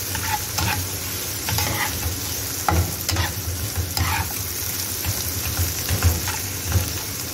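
Minced chicken and mixed vegetables sizzling in a frying pan while a slotted metal spatula stirs them, with irregular scrapes and knocks of the spatula against the pan every second or so over a steady frying hiss.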